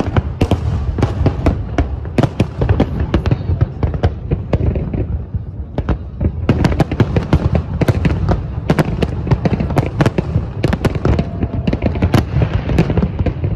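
Large aerial fireworks display: a rapid, continuous barrage of shell bursts and crackles, many sharp reports a second over a steady low rumble, growing denser about halfway through.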